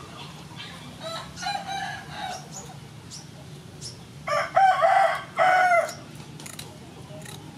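A rooster crowing: a fainter crow about a second in, then a loud crow in two parts about four seconds in. Between the crows, kitchen scissors snip through raw flatfish fins with short sharp clicks.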